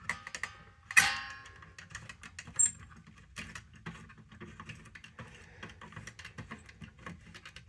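Small metal parts being handled: a run of light clicks and rattles, with one sharp metallic clink about a second in that rings briefly.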